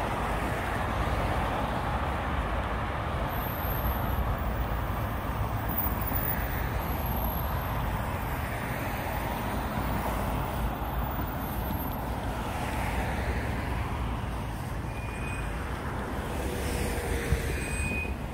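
Steady road traffic on a city street, cars passing with a low rumble. It eases a little past the middle and swells again near the end.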